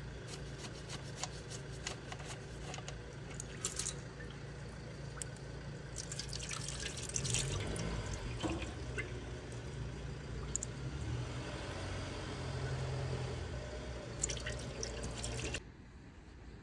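Scattered small clicks and rattles of gloved hands working on a car's underside, with two busier spells of handling noise, over a steady low hum. The sound cuts off suddenly near the end.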